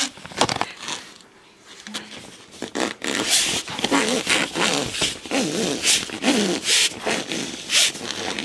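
Quick, irregular scraping and rustling as a soft copper refrigerant line is pushed up through a hole, rubbing against wood framing and insulation. The noise is busiest over the second half.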